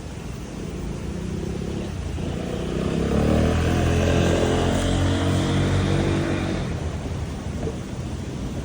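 A motor vehicle passing by on a street, its engine and tyre noise swelling over about a second, holding for a few seconds, then fading away, over a steady background of distant traffic.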